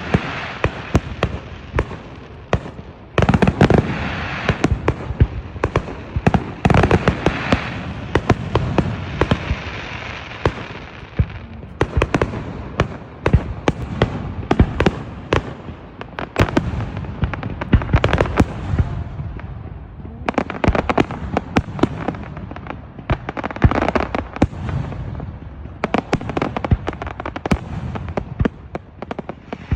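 Aerial fireworks display: many shell bursts in quick succession, with crackling and hissing between the bangs.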